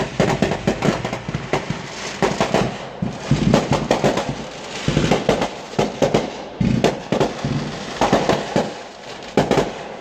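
Fireworks display: a dense run of aerial shells bursting, sharp bangs and crackling in quick succession, with several deeper booms among them.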